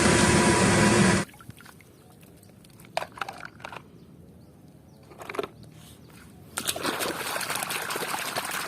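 Running water splashing as a muddy toy truck is washed. The water cuts off abruptly about a second in, a few light knocks follow, and a softer stream of water starts again near the end.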